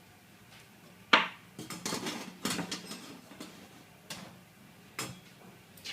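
Metallic clinks and knocks from handling steel cable tray and hand tools at a workbench: one sharp clank about a second in, then a cluster of lighter clinks, and a few more single knocks spaced out after.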